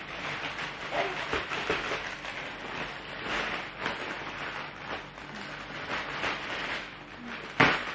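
Plastic wrapping and stiff woven aso-oke cloth rustling in irregular bursts as the bundles are handled and unpacked, with one sharp knock near the end.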